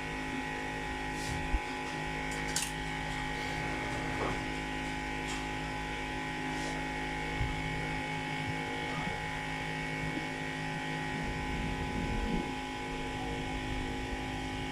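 Steady electrical hum made of several fixed tones, with a few light clicks and taps of handling on a repair bench.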